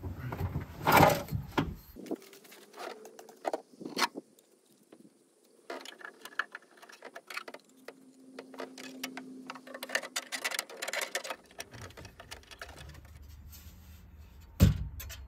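Scattered clicks, taps and knocks of parts being handled, with one sharp knock near the end.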